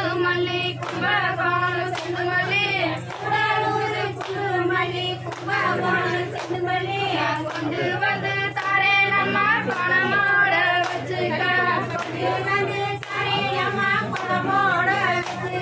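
A group of women singing a Tamil kummi folk song together, with hand claps about one and a half times a second keeping the beat of the dance.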